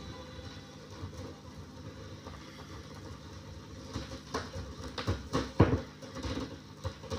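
Vinyl LP playing on a turntable as the song fades out: faint lingering tones over surface noise. From about four seconds in comes a run of irregular sharp clicks and knocks.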